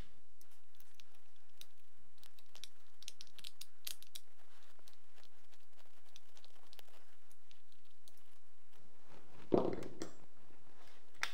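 A screwdriver turning the screws that fasten a PT-5RPK buttstock to an RPK: a run of small metallic clicks and ticks. A single louder knock comes about nine and a half seconds in.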